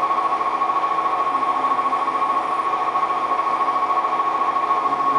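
Metal lathe running, turning a small metal flywheel blank held in its chuck. It makes a steady machine noise with one constant high whine.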